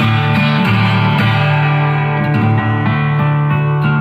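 Live guitar music without singing: a few strummed chords, each left ringing out.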